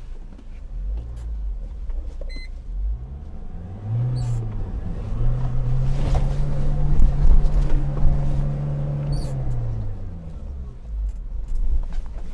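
JMC Yusheng's 2.4-litre turbodiesel pulling in low-range four-wheel drive over rough ground. Engine speed rises about four seconds in, holds for several seconds, then falls away near ten seconds, over a low rumble with a few faint clicks.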